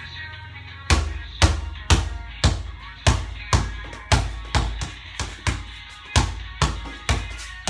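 A basketball dribbled hard on a court: sharp bounces start about a second in and run at roughly two a second, slightly unevenly.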